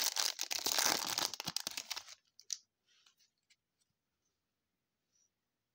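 Foil baseball card pack wrapper crinkling and tearing as it is ripped open, for about two seconds, then only a few faint ticks as the cards are handled.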